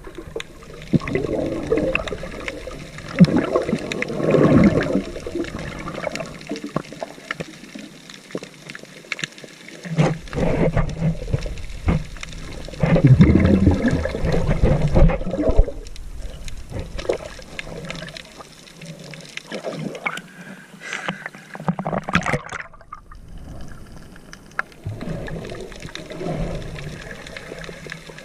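Seawater sloshing and splashing close by in irregular surges, with a few sharper splashes.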